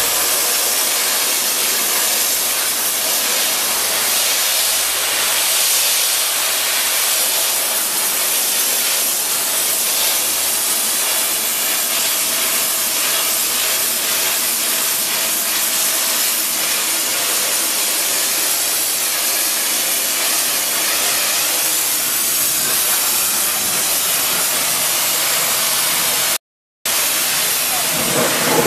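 A 600-bar wet abrasive blasting jet spraying onto painted steel and stripping the paint: a loud, steady hiss. It cuts out completely for about half a second near the end.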